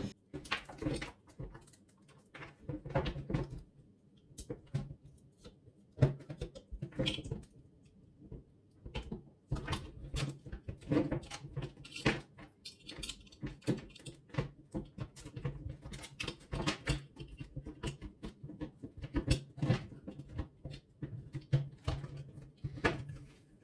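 Irregular clicks, knocks and rustles of the plastic housing and internal parts of an electric nailer-stapler being handled and fitted back together during reassembly.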